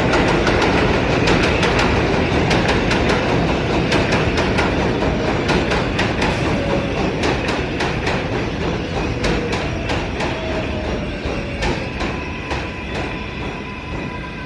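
R188 subway train on an elevated steel track pulling into a station. Its wheels give a steady rumble with rapid clicking over the rail joints, and the clicking thins out as the train slows. A faint falling whine runs through the middle as it brakes, and near the end a steady high tone sets in as the sound eases off.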